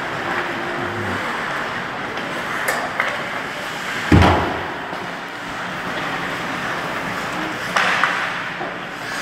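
Ice hockey game play in a rink: a steady wash of skating and arena noise, a few sharp clacks, and one loud thud with a ringing decay about four seconds in.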